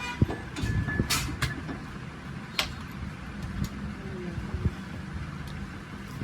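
A few sharp clinks, the first about a second in with a short ring after it, over a steady low hum.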